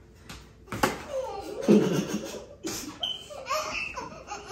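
Kids laughing hard, in several bouts, with a sharp smack a little under a second in.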